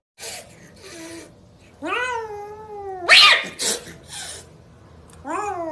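Kitten yowling and hissing: a few short hisses, then a drawn-out yowl about two seconds in that rises and falls, cut off by a loud, sharp hiss. A couple more short hisses follow, and a second yowl begins near the end.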